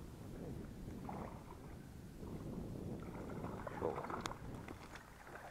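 Water splashing and sloshing around a small boat, with a few sharp clicks about four seconds in.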